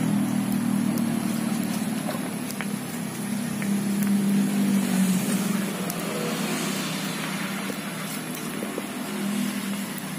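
Low, steady hum of a motor vehicle engine running nearby, swelling in the first half, then fading and returning near the end. A few faint clicks sound over it.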